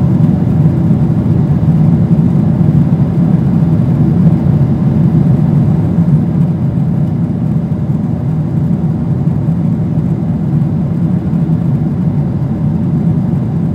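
Steady low cabin noise of a jet airliner in cruise, the engines and rushing airflow heard from inside the cabin as an even roar, strongest in the low range.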